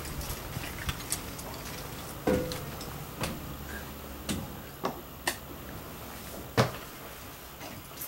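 Footsteps and knocks as someone climbs the trailer's metal fold-out entry steps and walks onto its floor: a handful of separate thuds, the loudest about two seconds in and again near the end, over a faint low hum.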